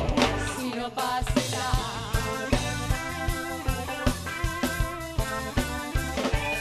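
Background music: an old-school Tagalog rock song, with guitar and drums playing a steady beat, between sung lines.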